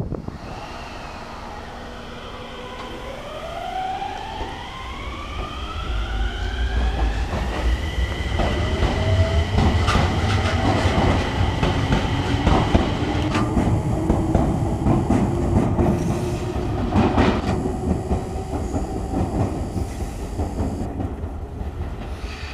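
Enshu Railway 2000-series electric train (set 2007) pulling away: its traction motors whine in several tones that climb in pitch as it accelerates and level off about eight seconds in, over the rumble and clatter of wheels on rail joints.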